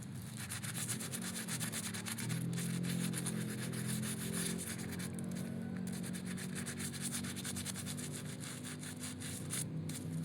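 Fast, continuous scrubbing of a dirty plastic toy figure, many quick strokes in a row, with a steady low hum underneath.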